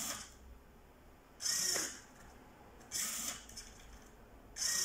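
Servo-driven mechanism of a prototype mechanical ventilator whirring in short strokes, about one every one and a half seconds, four in all, each stroke working the breathing bag.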